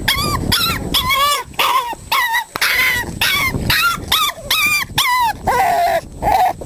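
Five-week-old Staffordshire bull terrier puppies yipping over and over, with short, high-pitched whiny yips coming about two a second. The last few yips near the end are lower.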